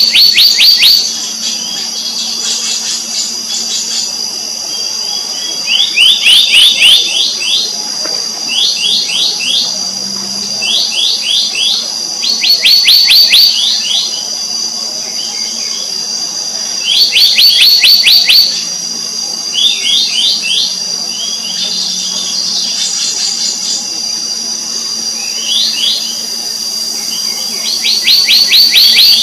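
Black-naped monarch calling: short bursts of five to eight quick, downslurred whistled notes, repeated every two to three seconds. A steady high-pitched drone runs underneath.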